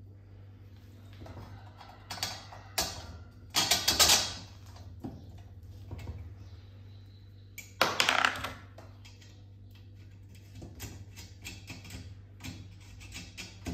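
Metal clatter and clicks from hands working the steel bars and bolts of a homemade egg-turner rack. There are a few louder clanks in the first half, then a run of lighter clicks near the end.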